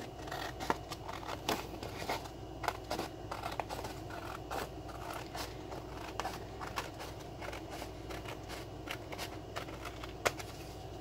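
Scissors cutting through heavy-duty cardstock, a long run of short, irregular snips, each close of the blades a sharp click; one snip near the end stands out louder.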